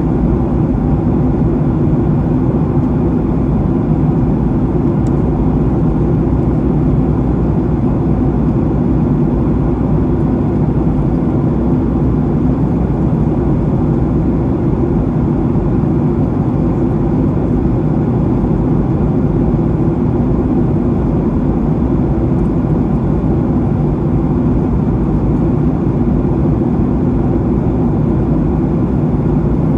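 Steady cabin noise of a Boeing 737-800 in flight, heard from inside the cabin: the drone of its CFM56 turbofans blended with rushing airflow, loud and unchanging.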